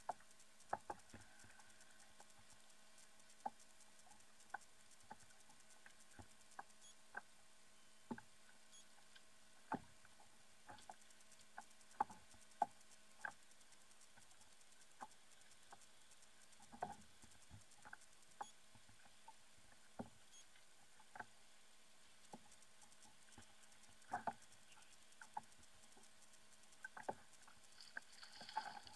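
Near silence, broken by sparse, irregular faint ticks and knocks over a low steady hum.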